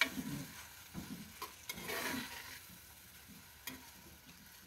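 Metal slotted spatula stirring and scraping beef and vegetables in a clay pot, with a few sharp taps against the pot, while the food sizzles faintly.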